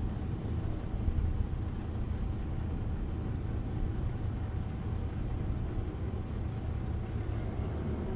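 Pickup truck engine idling: a steady low rumble.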